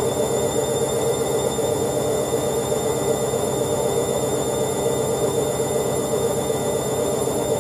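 Hoover Ecologic 1300 front-loading washing machine in its spin cycle, the drum turning at a steady speed with a constant motor whine.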